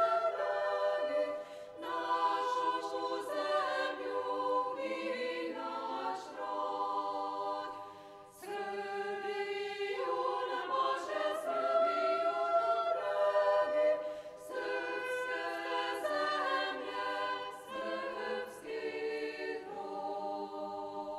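Women's choir singing a cappella in harmony: several sustained voices in phrases, with short breaths between them and a longer pause about eight seconds in.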